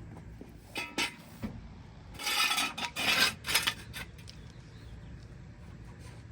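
Two sharp metallic clinks about a second in, then a run of short scraping, rattling bursts of metal being handled or dragged.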